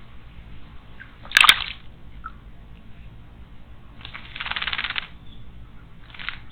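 A small bird bathing in a stone garden water basin, splashing the water: one sharp loud splash about a second and a half in, a second-long run of splashing around four seconds, and a brief splash near the end.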